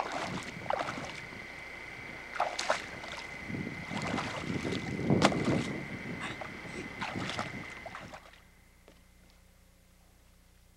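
Shallow water sloshing and splashing, with rustling and a few sharp bumps over a faint steady high tone. It stops about eight seconds in, leaving only a faint hiss.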